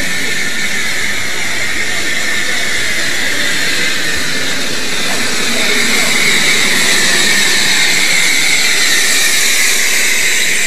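Miniature live-steam locomotive hauling passengers, with a steady steam hiss that grows louder about halfway through as it comes closer.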